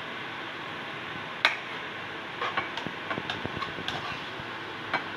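Steady background hiss with scattered sharp clicks of a utensil against a china plate: a loud one about a second and a half in, a quick run of lighter ones in the middle, and one more near the end.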